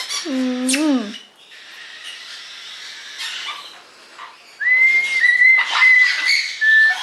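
Whistling of a simple tune: pure, steady high notes that step between a few pitches, starting about two-thirds of the way in and running on past the end. Scratchy calls and sharp clicks from the pet parrots are around it, and near the start there is a short wordless, wavering vocal sound.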